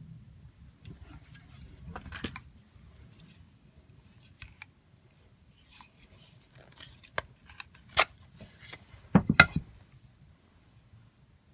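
Makiri knives with wooden handles being picked up and put down: scattered light clicks, taps and rubs of steel blades and wooden handles. A quick run of knocks about nine seconds in is the loudest.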